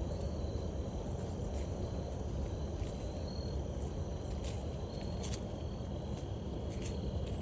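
Crickets trilling steadily over the low, continuous rumble of a distant train, with a few brief faint clicks scattered through.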